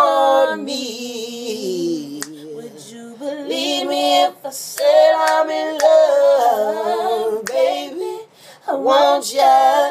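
A woman and a man singing a cappella, with no instruments: long held notes and slow, gliding vocal runs, broken by short pauses for breath.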